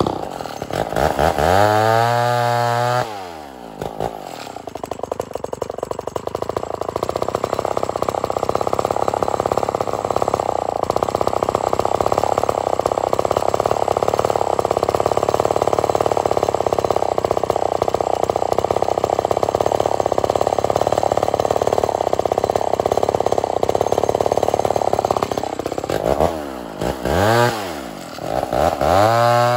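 Vintage 68cc Lombard Super Lightning two-stroke chainsaw winding down from full throttle to idle in the first three seconds. It idles steadily for about twenty seconds, then is revved up twice near the end and held at full throttle. The owner says the idle needs adjusting.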